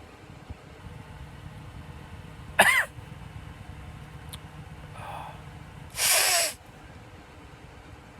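A man sneezing twice, his nose and sinuses burning from snorted cayenne pepper. The first sneeze is short and voiced, about two and a half seconds in. The second is a longer, noisier blast about six seconds in.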